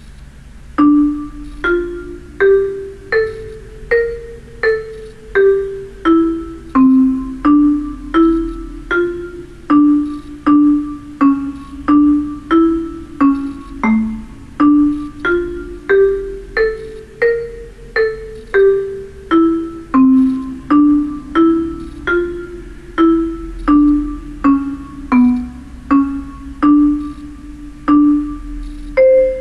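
Mallet-percussion notes from the Vibrafun tablet app, played one at a time as a simple melody that rises and falls, at about one and a half notes a second. Each note starts sharply and rings briefly. The playing begins about a second in.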